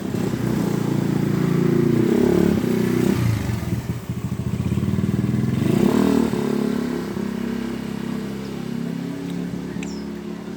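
A small engine running, loud, rising and falling in pitch twice, about two and six seconds in, then steadier and fading toward the end.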